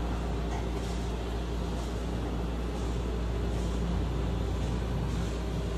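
Steady low rumble and hum of train-station ambience, with faint soft swishes recurring about once a second.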